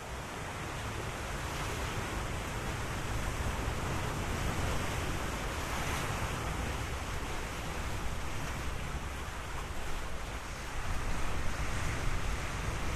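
Sea waves washing onto the shore, a steady rush that swells in over the first second, with a low rumble of wind on the microphone.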